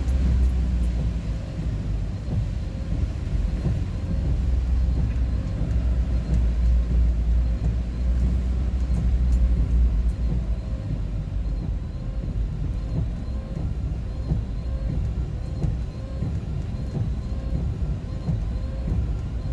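Steady low rumble of a vehicle driving along a road, engine and tyre noise heard from inside the cab.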